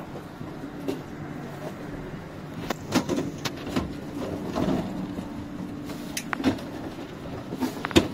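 Knocks and clatter of luggage and footsteps as passengers crowd through a train's vestibule to the door, including a hard-shell suitcase being handled, over a steady low hum. The sharpest knock comes near the end.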